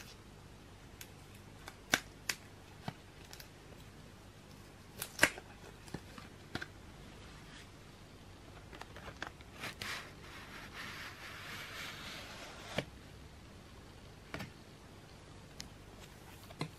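Hands handling printed cards and card-stock items in a cardboard box: scattered sharp clicks and taps of card against card and box, with a few seconds of papery rustling and sliding about ten seconds in.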